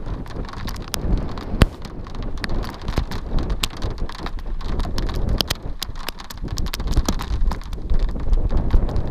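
Rain falling, with drops striking close to the microphone as many irregular sharp ticks, over a steady low rumble of wind on the microphone.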